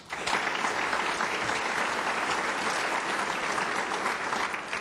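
Audience applauding in a large hall, starting at once and dying away near the end.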